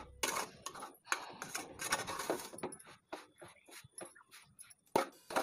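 Steel spoon scraping and clinking against a metal pan as semolina, grated coconut and powdered sugar are stirred, in irregular strokes, with a sharper knock about five seconds in.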